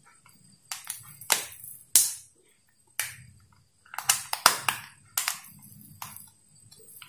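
Plastic clicks, snaps and scrapes as a screwdriver tip pries at the snap-in clips of a Philips blender's push-button switch housing, in irregular bursts with a quick cluster of clicks a little past the middle.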